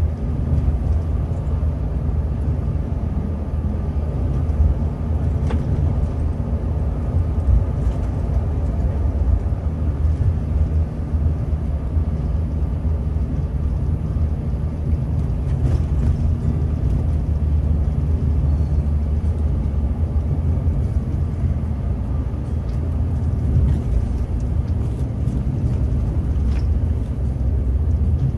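Scania K360 coach's 13-litre DC13 turbocharged inline-six diesel engine running steadily while the coach is under way, a continuous low drone heard from inside the driver's cab.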